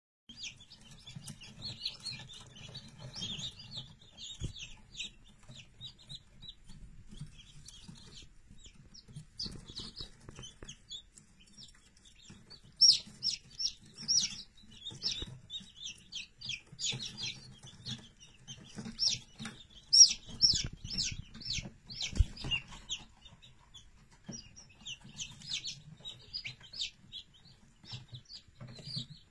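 A young chick peeping: runs of short, high-pitched cheeps, loudest and most frequent through the middle stretch.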